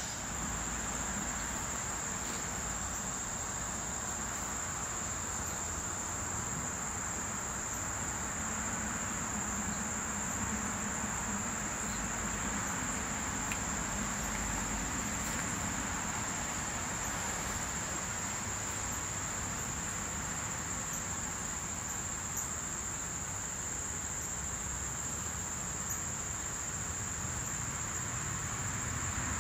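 Insects trilling steadily in one continuous high-pitched tone, over a faint steady background hiss.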